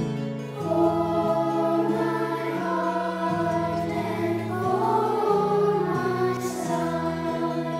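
Children's choir singing a slow, sustained sacred song in parts, over an instrumental accompaniment whose chords change about once a second.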